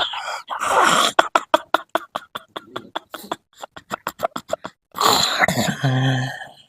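A fast run of short, sharp breathy bursts from a person's mouth and throat, about five or six a second, for some four seconds. About five seconds in comes one longer voiced, rasping sound.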